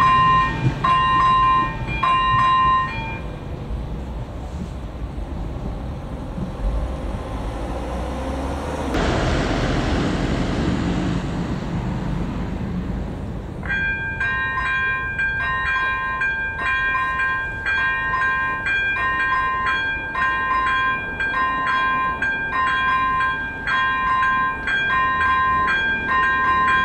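Electronic warning bell of a Czech level crossing (AŽD 97 signals with ZV01 bells) dinging about once a second. It stops about three seconds in, leaving a low rumble and hiss for about ten seconds. The bell then starts again, now with a steady ringing tone beneath the dings.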